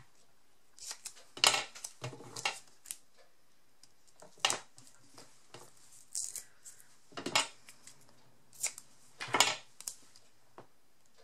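Paper crafting handling sounds: short rustles, clicks and snips of paper and small craft pieces being handled at irregular intervals, while 3D foam pads are readied for a card sentiment.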